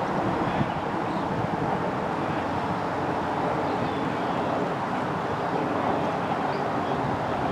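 Steady outdoor background noise, an even rumble and hiss with no distinct event.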